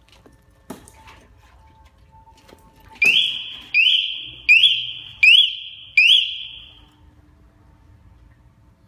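TOPGEAR CS-550 motorcycle anti-theft alarm sounding: five loud, high chirps in quick succession, each sweeping up and holding briefly, starting about three seconds in. A single knock comes just before, near the start.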